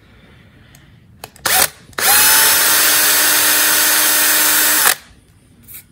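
Drill bit boring into the head of an aircraft rivet to drill it out: a short burst about one and a half seconds in, then about three seconds of steady running with a constant whine, stopping suddenly. The rivet head is being drilled a little deeper so it can be snapped off.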